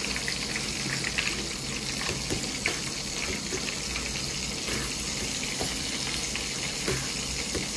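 Coated bombil (Bombay duck) fish sizzling steadily in hot frying oil, with a few faint clicks.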